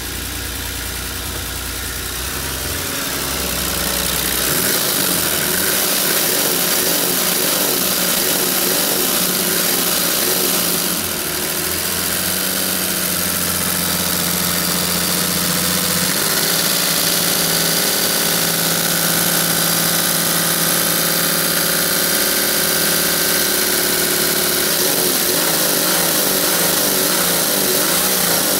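Nissan TD42 4.2-litre straight-six diesel engine idling steadily, getting louder from about four seconds in as it is heard up close through the open engine bay.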